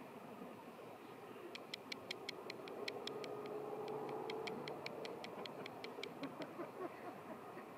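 A rapid, even run of sharp, high ticks, about five a second. It starts a second and a half in, breaks off briefly, and stops shortly before the end, over faint held tones.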